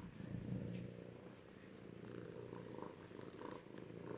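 Cats purring steadily and close.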